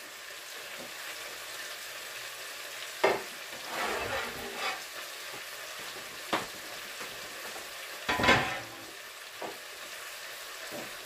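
Steady sizzling of food frying in a pan, with a few separate knocks and clatters from kitchen handling; the loudest knock comes about eight seconds in.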